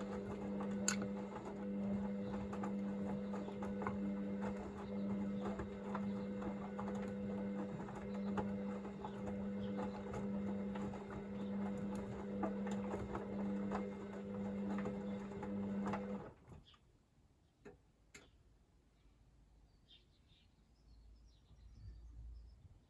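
Hoover VisionDynamic washing machine's drum motor turning the drum during the wash stage while the water heats to 40°C: a steady hum with light clicks, stopping abruptly about sixteen seconds in, after which only a few faint clicks are heard.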